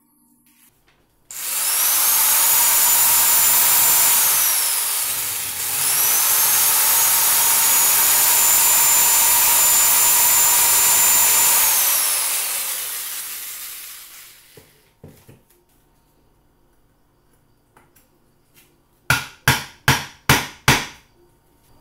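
Handheld rotary tool with a small abrasive stone bit grinding at the inside of an old flashlight's back lid: it spins up with a high whine about a second in, briefly slows and picks up again, then winds down over a couple of seconds. Near the end, five quick sharp scrapes of a screwdriver-like tool on the lid.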